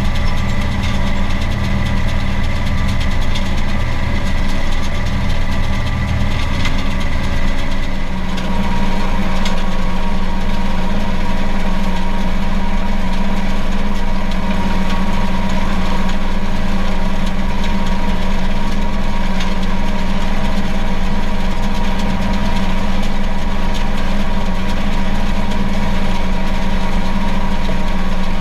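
Case IH 4240 Pro tractor's diesel engine running steadily, heard from inside the cab while it pulls an Orkel GP 1250 round baler that is baling hay. The engine note changes about eight seconds in.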